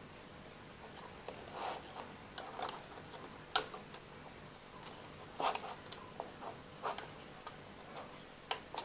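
Light, irregular clicks and taps of fingers and rubber bands against a plastic Rainbow Loom's pegs as loom bands are hooked and set in place.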